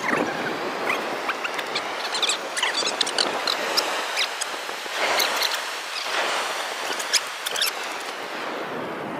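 Steady hiss of sea surf and wind, with many small scattered clicks and crackles over it.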